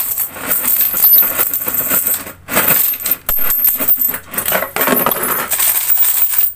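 Coins pouring out of a plastic barrel-shaped piggy bank into a clear jar of coins, making a dense metallic jingling clatter. It falters briefly twice, a little over two seconds in and again about a second later.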